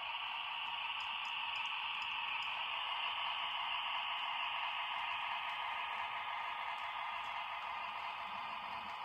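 HO scale model diesel switcher and boxcars rolling along the track: a steady whirring hiss of motor and wheels, louder about three to four seconds in as the locomotive passes closest, then slowly easing.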